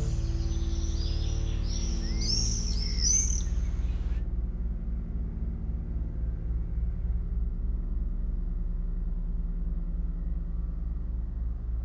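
Electronic sound-art soundscape: a low droning hum with a pulsing beat under it, overlaid with high bird-like chirps. About four seconds in, the chirps and all the high end cut out abruptly, leaving the muffled drone.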